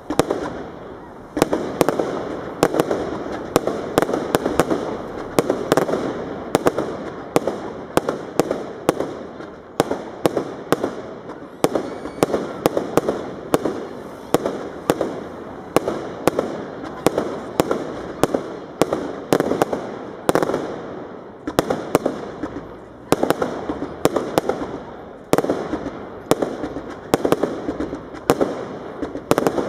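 Aerial firework shells bursting in a rapid, steady series of bangs, each followed by a short echoing tail.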